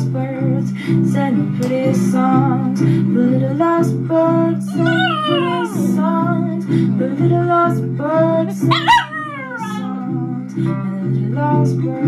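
A papillon dog howling along to a song with guitar, its howls sliding up and down in pitch, most clearly about five seconds in and again near nine seconds.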